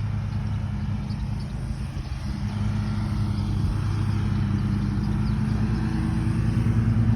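Motor vehicle engine running with a steady low hum, growing slightly louder toward the end.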